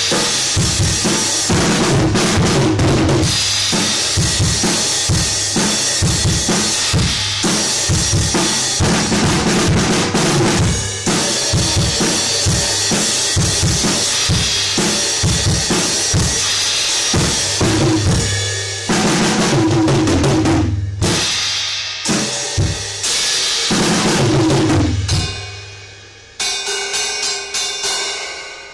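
A Pearl drum kit played as a full groove: bass drum, snare and tom strokes with crash cymbals washing over them, among them a Paiste PSTX 16-inch Swiss Thin Crash being sound-tested. Near the end the playing breaks off and the kit rings down, then a few lighter strokes follow.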